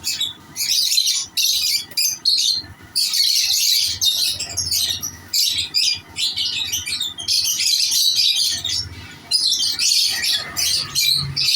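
A flock of lovebirds chattering and squawking together, shrill high calls coming in dense bursts with short gaps.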